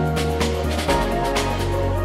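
Background music: an electronic track with held synth notes, a bass line and a steady beat.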